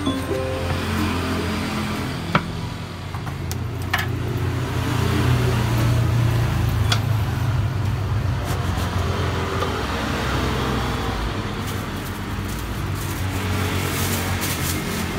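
Motor traffic going by on the road, a low engine rumble that swells in the middle and again near the end, with a few sharp clicks from the knife and takeaway box being handled.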